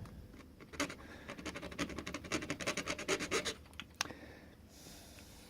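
Hand file rasping across an MS2 key blank, deepening a cut at a pin position marked during impressioning. A quick run of short strokes lasts about three seconds, then a single click.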